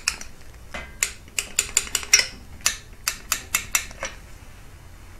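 Hand ratchet clicking as a bolt is run down, the pawl ticking in quick bursts on each back-swing of the handle; the clicking stops about four seconds in.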